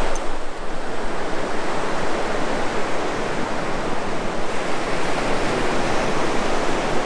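Sea surf on a sandy beach: small waves breaking and washing up the shore in a steady, unbroken rush.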